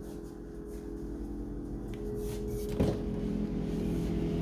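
Freezer door being pulled open, with one sharp knock about three seconds in, over a steady low hum.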